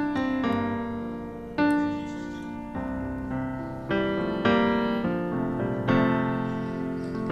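Piano playing the slow introduction to a gospel choir song: soft chords struck one after another, each left to ring and fade.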